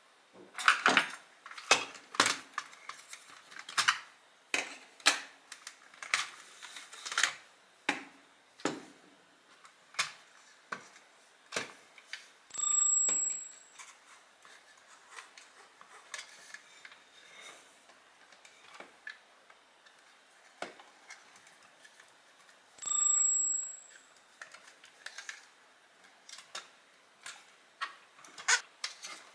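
Clicks and knocks of a Dyson soft roller cleaner head's plastic parts and tools being handled, in irregular bursts. Twice, about ten seconds apart, a steady high tone sounds for about a second.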